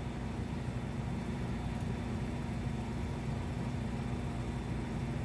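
Steady low droning hum that does not change, with one faint click about two seconds in.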